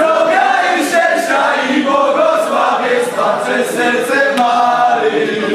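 A crowd of people singing together in unison, many voices at once.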